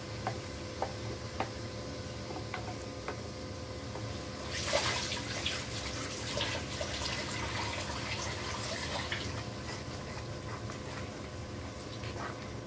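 Wooden spoon clicking and scraping against a steel grinder jar, then a sudden loud sizzle about four and a half seconds in as the wet onion-cashew paste hits the hot oil in the kadhai. The sizzle dies down over the next several seconds.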